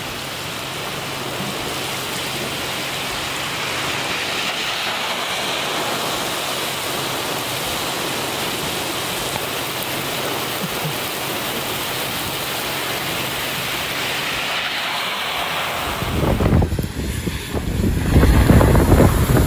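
Hurricane Isaias rain pouring in a steady hiss onto a street in strong wind. About sixteen seconds in it gives way to louder, gusty wind buffeting the microphone.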